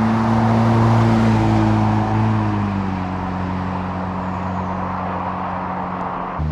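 2.3-litre four-cylinder Ford Bronco driving past, its exhaust note loudest about a second in, then dropping in pitch and fading as it pulls away.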